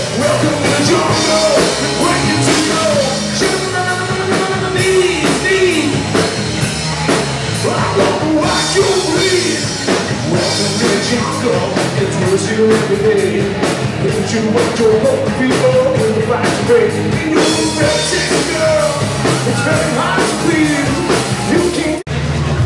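Live rock band playing loud, with electric guitar, drum kit and a singer. The music cuts off abruptly near the end.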